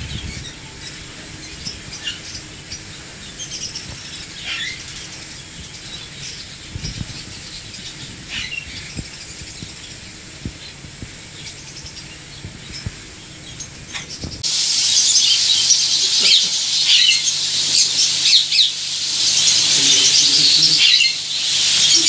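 Caged birds chirping over and over against the steady hiss of a polyurethane foam spray gun. About two-thirds of the way in, the hiss and the chirping suddenly get much louder.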